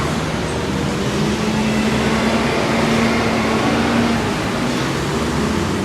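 Road traffic running by, with one vehicle's engine hum swelling from about a second in and fading again about four seconds in as it passes.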